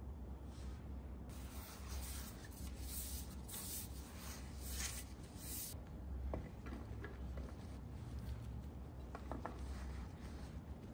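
Soft rubbing and rustling for a few seconds as something is handled, followed by a few light clicks and taps.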